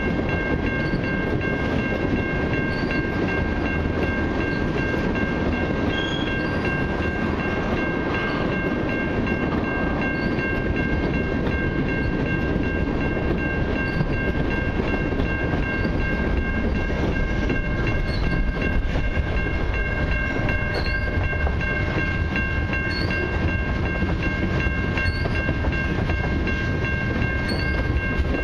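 Freight train's tank cars and boxcars rolling past a level crossing: a steady rumble of steel wheels on the rails, with a few steady high ringing tones held over it.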